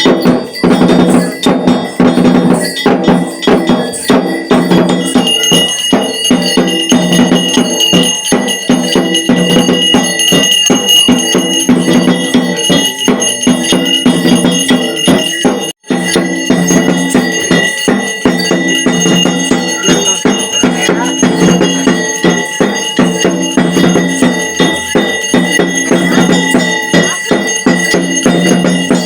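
Drums beaten in a rapid, dense rhythm with a bell ringing steadily over them; about halfway through the sound cuts out for an instant.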